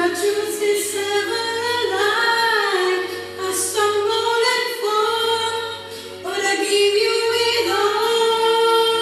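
A woman singing solo into a handheld karaoke microphone, in long held phrases with short breaks about four and six seconds in.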